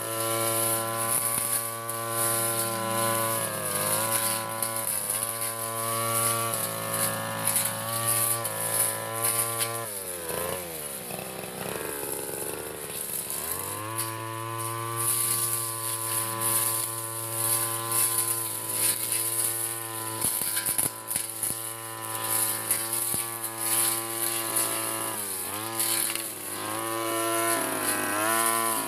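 Backpack brush cutter's small petrol engine running at high revs while cutting grass to the soil, with brief dips in speed. About ten seconds in it drops to idle for a few seconds, then revs back up.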